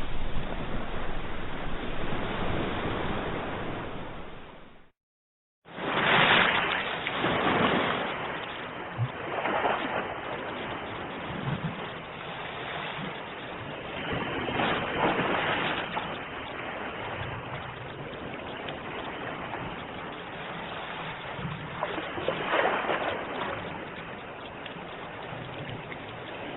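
Ocean waves washing onto the shore, surging and receding every few seconds. The sound fades out and drops to silence for a moment about five seconds in, then the waves resume.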